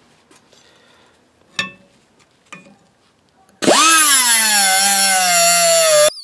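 A light knock, then a little over halfway in an angle grinder's cut-off wheel starts cutting into the steel bearing retainer ring on an axle shaft: a loud, high whine that sinks slowly in pitch as the disc bites into the metal. It stops abruptly just before the end.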